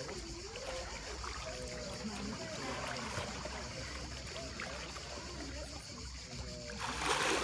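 Swimming-pool water lapping and trickling around a person wading and moving her arms through it, with a louder splash near the end as she plunges into the water.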